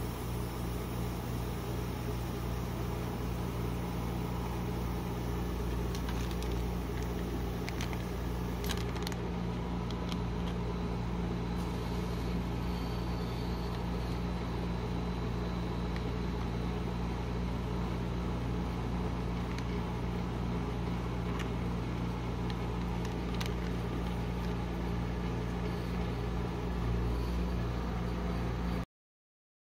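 Refrigeration unit of a rolled ice cream cold plate machine humming steadily, with a few faint taps from handling. The hum cuts off suddenly near the end.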